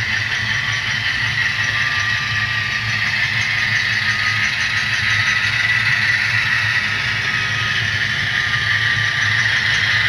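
HO-scale Kato GE AC4400CW model locomotive's DCC sound decoder playing a steady diesel engine running sound through its small onboard speaker, mixed with the rattle of the model train rolling over the track. It gets a little louder as the train approaches.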